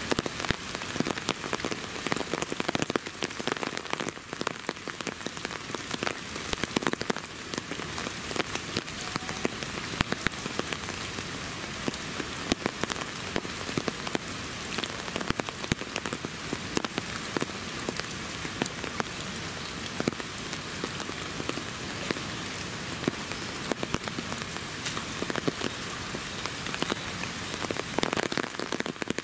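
Steady rain, with many separate drops tapping sharply on surfaces close by.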